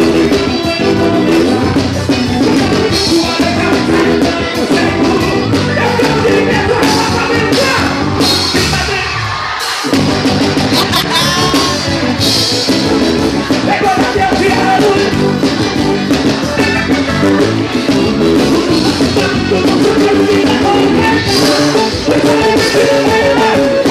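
Live gospel praise band playing through a PA: electric guitars, bass guitar, keyboard and drum kit, with a singer. About nine seconds in, the low end drops out for roughly a second, then the full band comes back in.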